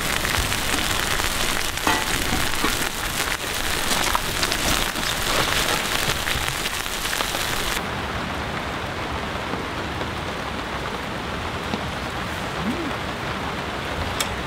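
Heavy downpour drumming on a camping tarp: a dense, steady patter of rain. A little over halfway through, the sound suddenly turns duller as the high hiss drops away, and the rain carries on.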